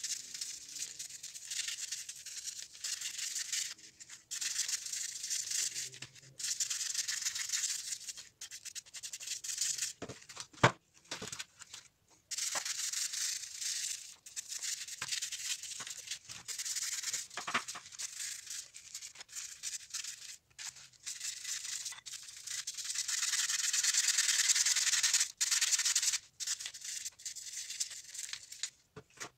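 A toothbrush scrubbing rusty steel wrenches in a foil tray of foamy liquid: stretches of brisk, hissing bristle strokes with short pauses between them. Two sharp knocks come through, the louder about ten seconds in.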